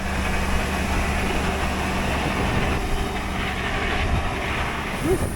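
Tractor-driven grain bag extractor running steadily: a constant low engine drone with a rushing noise over it.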